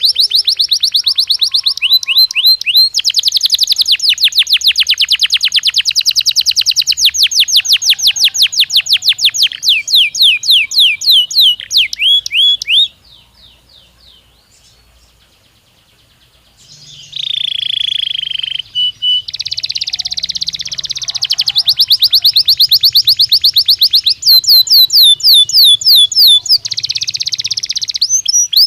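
Domestic (Belgian) canary song played as a stimulus recording: long rolling trills of fast, evenly repeated down-slurred notes that change speed from phrase to phrase. There is a brief lull about halfway, and a short harsh buzzing note soon after.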